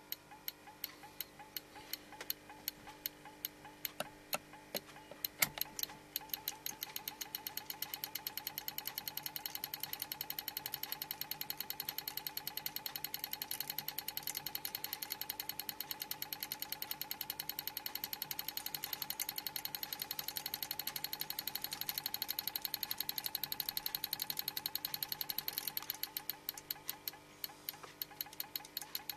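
Homemade magnetic repulsion motor running on 4.5 V, ticking once with each pulse of its rotor. The clicks start at about two a second, speed up to a fast, even ticking over the first several seconds, and slow again near the end, with a faint steady hum underneath.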